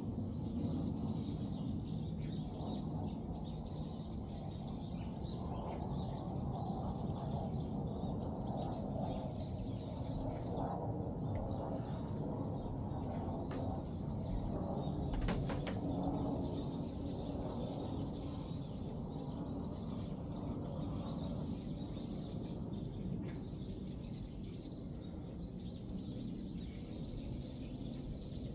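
Outdoor garden ambience: a steady low background noise with scattered faint bird chirps.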